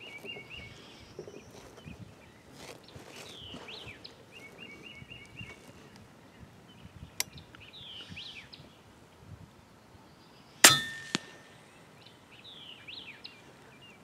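Birds singing a short descending chirped phrase every few seconds. About ten and a half seconds in, one sharp shot from an FX Impact M3 .30-calibre PCP air rifle, with a fainter crack half a second later.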